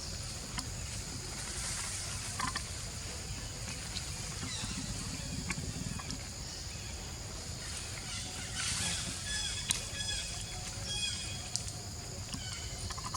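Steady high-pitched insect chirring over a low rumble, with a few short, high animal chirps or squeaks in the second half.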